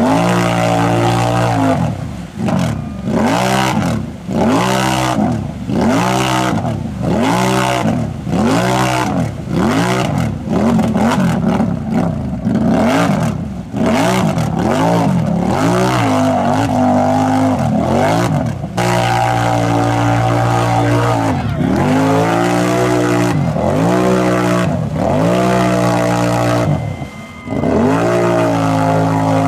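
ATV engine revved hard over and over, its pitch rising and falling about once a second as the rider works the throttle to drive the bogged-down quad through deep mud with its tyres spinning. Twice the revs are held steady for a second or two before the blipping resumes.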